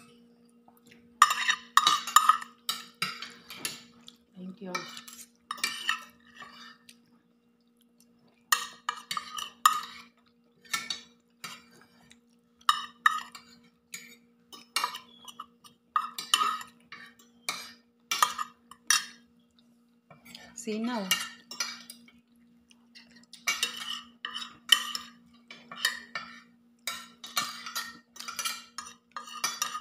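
Cutlery scraping and clinking against a plate while eating, in repeated clusters of sharp clinks with short pauses. A faint steady hum runs underneath.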